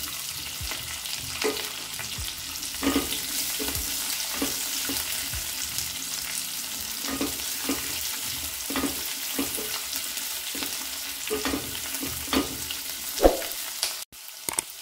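Chopped onion frying in hot oil in a pan: a steady sizzle, with a spatula stirring and scraping against the pan now and then. The sound cuts out for an instant near the end.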